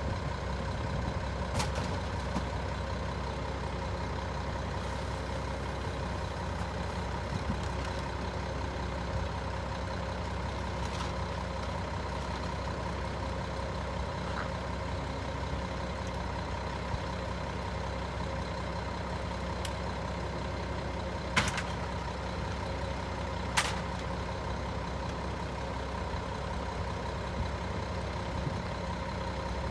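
Mack MR rear loader garbage truck's diesel engine idling steadily. Two sharp knocks about two seconds apart in the second half, as bulk trash is loaded into the Leach rear hopper.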